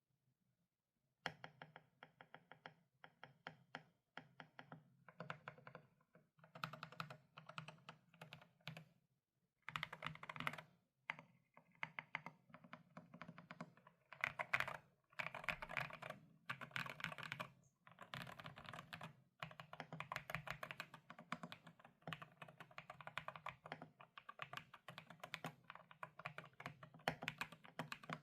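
Typing on a GMK67 mechanical keyboard with Akko V3 Pro Cream Blue tactile switches: fast, irregular keystrokes that start about a second in and carry on with brief pauses.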